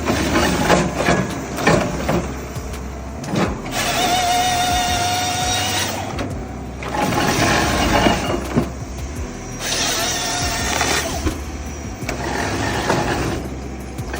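A forestry harvester head's chain saw cutting through logs: four separate cuts of one to two seconds each, over the steady running of the machine between them.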